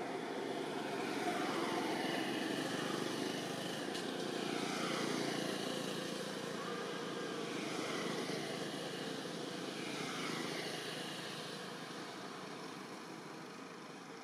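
Distant engine drone, steady with slow sweeping shifts in tone, fading away over the last few seconds.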